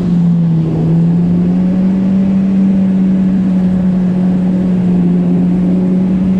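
Yamaha FXHO jet ski's four-stroke engine running at a steady cruising speed, a loud even drone whose pitch climbs slightly about a second in and then holds.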